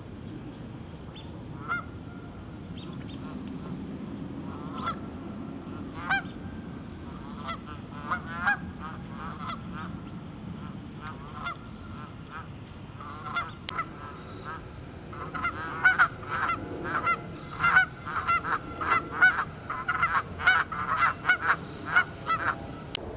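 Geese honking: scattered single honks at first, then many overlapping honks in quick succession through the last third, over a low steady background rumble.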